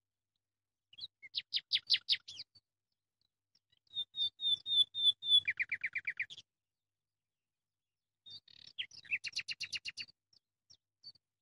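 A bird singing three short phrases of quick repeated notes with pauses between them; in the middle phrase a run of higher notes drops into a lower trill.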